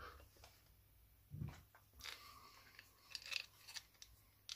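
Faint clicks, scrapes and rattles of small screws and metal parts being handled while a replacement exhaust is fitted to an RC car, with a dull knock about a second and a half in.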